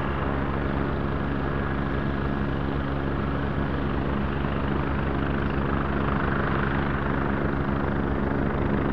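Boeing 787-8 Dreamliner's GEnx-1B turbofan engines at climb power just after takeoff: a steady jet rush with a low drone of steady tones underneath, heard from the ground as the airliner climbs away.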